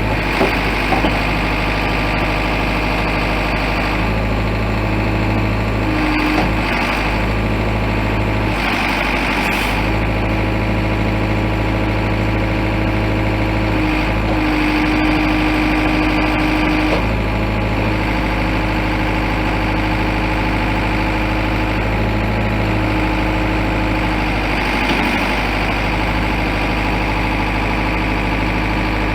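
New Holland 555E backhoe loader's diesel engine idling steadily.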